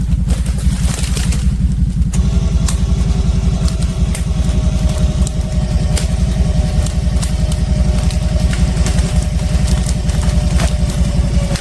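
ATV engine running steadily at low revs, with scattered sharp ticks over it.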